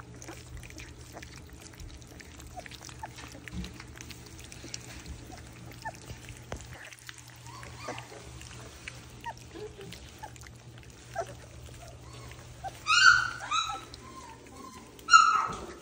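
A litter of 3-week-old Labrador puppies lapping and slurping mush from a shared feeding pan: a steady patter of small wet licking clicks. Near the end, two short high-pitched squeals, each dropping in pitch.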